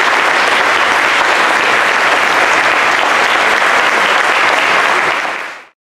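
Audience applauding, a steady, loud clapping that fades out quickly near the end.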